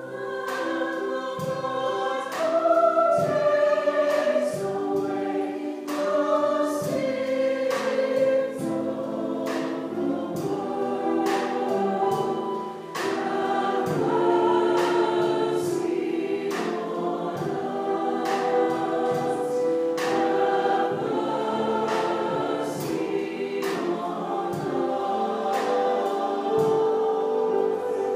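Mixed choir singing a gospel-style mass setting, with piano and a drum kit keeping a steady beat. The choir comes in over the piano at the start.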